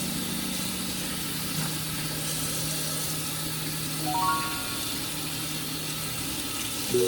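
Steady rush of water running from a kitchen tap, under soft background music that holds low notes and plays a short run of rising notes about four seconds in.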